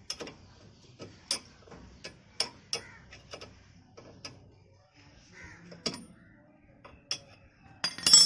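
Sharp metal clicks and knocks, about a dozen at irregular intervals, from a 12 mm ring spanner working the lower brake caliper bolt of a Maruti 800 front disc brake. The loudest cluster of clicks comes near the end.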